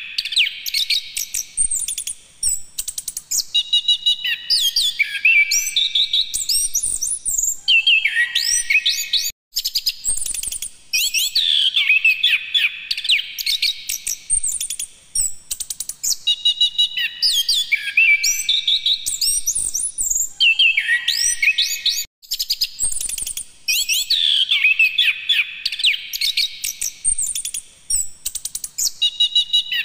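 Chestnut-capped thrush (anis kembang) singing a long, rapid, varied song of high chirps, whistles and trills. Brief pauses come about 9 and 22 seconds in, and the same run of phrases repeats about every 12 to 13 seconds.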